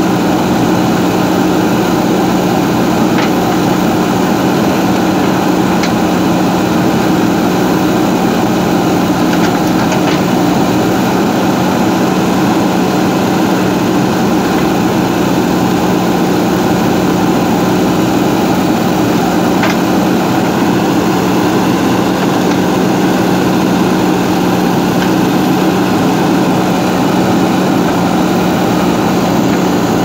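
Diesel engine of a JCB 3DX backhoe loader running steadily while its backhoe arm digs wet soil, with a few faint clicks.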